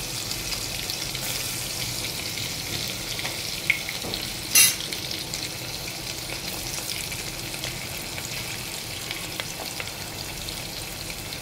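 Chopped garlic and onion frying in hot oil with cumin and mustard seeds in an aluminium pot: a steady sizzle. There is a small click a little under four seconds in and a louder sharp click at about four and a half seconds.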